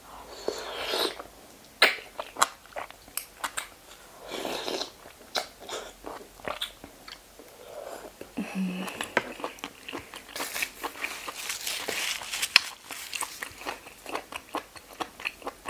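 Close-miked chewing of razor clams in fermented-fish sauce: wet mouth sounds and many small crunchy clicks as the clam meat is bitten and worked.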